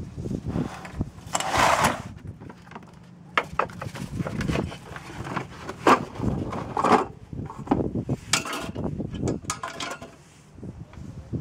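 Hands handling a cardboard box and a silicone muffin mould, with a rustling scrape and a run of irregular knocks and clicks as the mould is upended onto a cardboard tray and pressed to release cast orgonite resin pieces.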